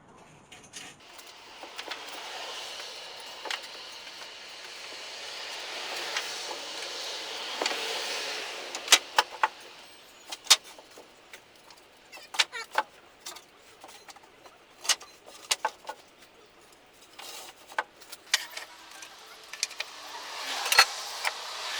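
Pallet-wood boards being handled and stacked: boards scraping and sliding against each other, with sharp knocks of wood on wood, several in quick succession in the middle.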